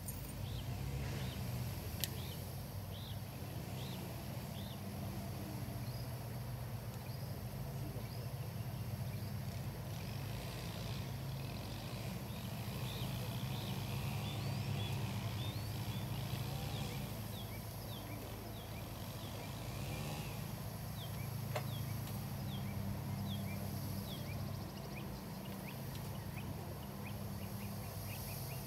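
Outdoor ambience: a steady low rumble with small birds chirping over it again and again, and a couple of faint clicks.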